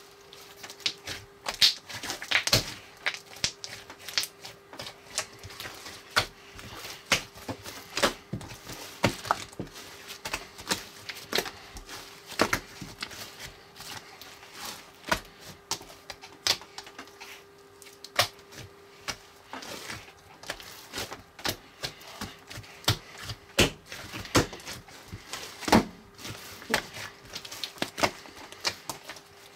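Homemade foam-ball slime being squeezed and worked by hand: irregular crackling and popping clicks, several a second, as the foam beads are pressed together.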